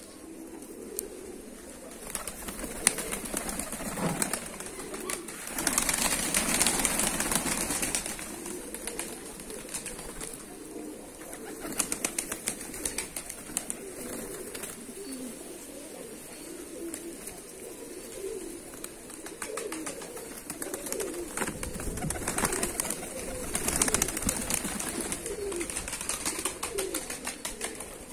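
A flock of domestic fighting pigeons cooing continuously while pecking at grape seeds on concrete, with many small pecking clicks. Two louder bursts of wing flapping and scuffling come as they crowd over the food, about six seconds in and again after twenty seconds.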